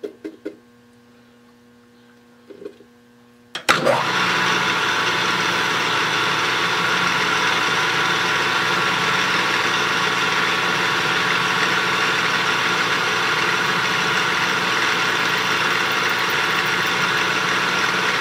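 A few light knocks, then about four seconds in a metal lathe's spindle is switched on and runs steadily with a mix of whining tones, while a twist drill in the tailstock chuck is fed into the spinning bar stock.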